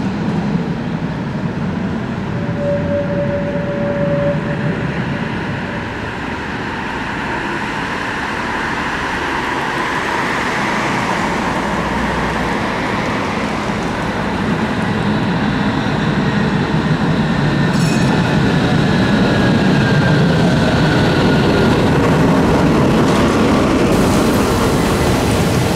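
Tram running along a street track, its rolling rumble growing louder through the middle and holding steady near the end. A brief steady tone sounds about three seconds in, and a sharp click about two thirds of the way through is followed by a faint falling whine.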